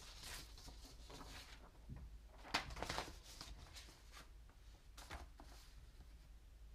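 Sheets of paper rustling and sliding as printed photographs are handled on a worktable: soft rustles, then a sharper click and rustle about two and a half seconds in and another about five seconds in.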